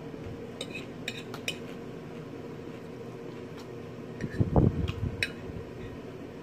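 A metal fork clinking and scraping on a dinner plate in a scatter of sharp clicks, with a short, louder, low muffled sound about four and a half seconds in.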